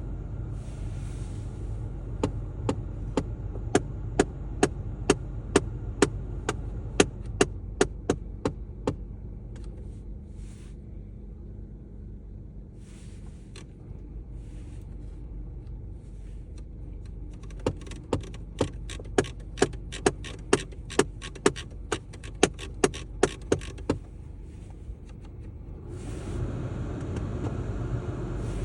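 Rapid, regular knocking from a VW Golf 7's heating system, about three knocks a second over a steady low hum, in two runs with a pause between them. The owner finds the knocking goes away when the heating is turned down.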